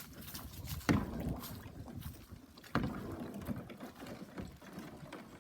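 A kayak knocking and scraping against ice on a frozen-over pool: two sharp knocks about two seconds apart, with crackling and grinding between them.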